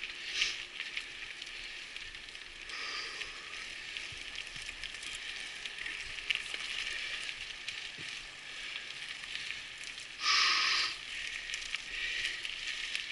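Mountain bike climbing a trail, with a steady hiss of tyres and surroundings. A short, loud, high squeal comes about ten seconds in, and a fainter one about three seconds in.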